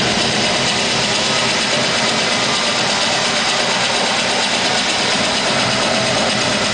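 House music from a DJ set played loud over a club sound system, heard as a steady, dense, distorted wash without a clear beat.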